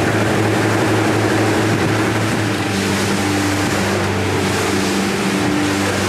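Motorboat under way: a steady engine hum beneath a loud, even rushing noise.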